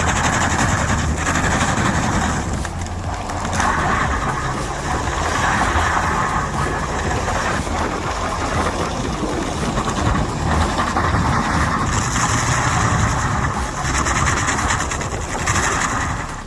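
An engine running steadily, its level swelling and easing as if under changing load, then cutting off at the end.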